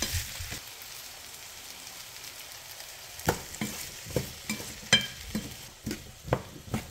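Diced potatoes sizzling softly in a frying pan as a wooden spatula stirs them. From about three seconds in, the spatula knocks and scrapes against the pan about twice a second.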